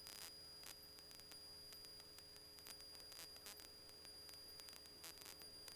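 Near silence on the radio audio feed between transmissions: only a faint steady hum and hiss, with a few faint ticks.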